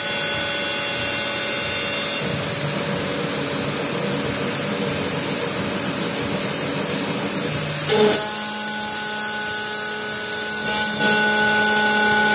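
CNC router spindle with an end mill cutting a carbon fiber AR-15 forend tube turning on a rotary axis, with a steady grinding, rushing noise. About two-thirds of the way through it gets louder and takes on a steady high-pitched whine.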